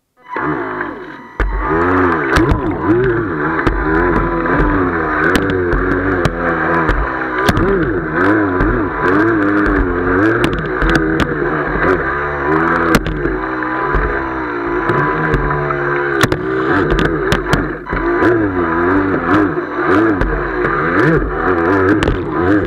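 Speedboat engine running at speed, its pitch wavering up and down, mixed with rushing water and wind noise and frequent sharp knocks. The sound comes in just at the start and jumps louder about a second and a half in.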